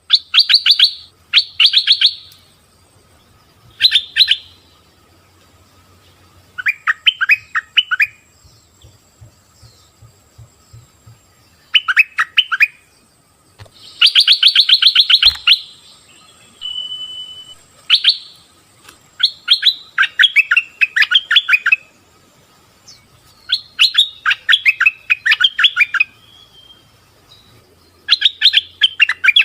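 Bulbul (merbah) calling: short bursts of rapid chattering chirps, repeated every couple of seconds, some phrases higher and some lower. A faint steady tone hums underneath.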